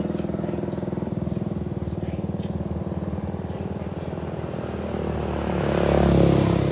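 A small engine running steadily, growing louder for a moment about five to six seconds in.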